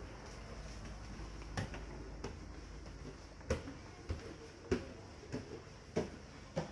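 Footsteps climbing a flight of stairs: about eight short knocks at an even walking pace, starting a second and a half in.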